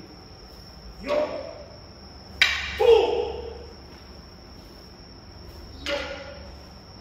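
Kendo kata kiai: short, loud shouted cries from practitioners striking with wooden swords, about one second in, twice in quick succession around two and a half to three seconds in, and again near six seconds, echoing in the hall.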